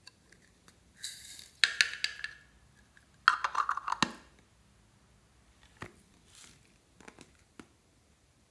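Hard plastic containers being handled: clicks and rattling as the lid goes onto a heart-shaped plastic glitter tub, in two busy bursts about a second in and just past three seconds in, then a few single light plastic taps near the end.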